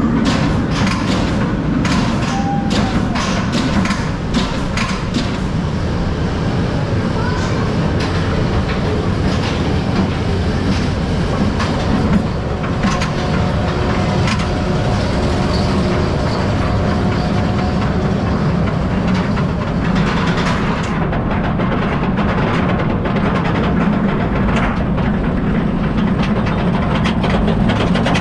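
Kumba, a Bolliger & Mabillard steel roller coaster, heard from its back row as the train rolls out of the station and climbs the chain lift hill: a steady mechanical rattle with many sharp clicks.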